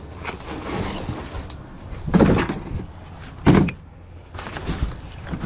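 Things being shifted and bumped about inside a metal dumpster: rustling and knocking, with two heavy thumps about two and three and a half seconds in.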